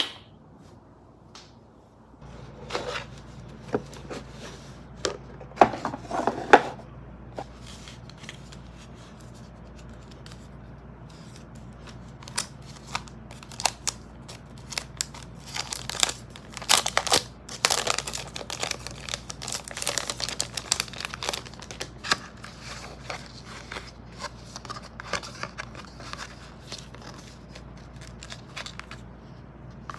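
Packaging being handled and opened: irregular crinkling, rustling and tearing sounds, some sharper and louder than others. A steady low hum runs underneath, starting about two seconds in.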